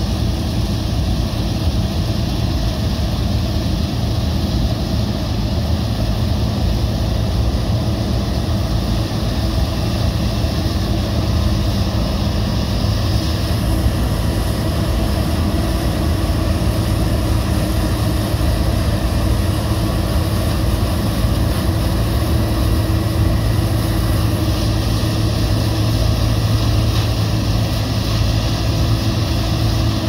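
Gleaner combine harvesting soybeans: a steady drone of its diesel engine and threshing machinery. A Case IH tractor's engine joins in, growing louder near the end as the tractor comes close.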